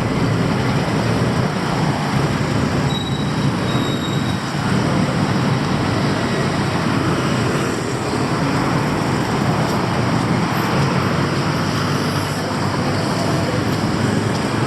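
Steady, loud rumble of passing vehicles, with no break or single event standing out.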